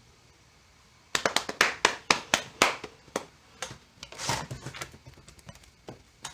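A quick run of sharp taps and knocks, about a second in, as hard objects are handled at a workbench. A brief rustle follows, then a few scattered clicks.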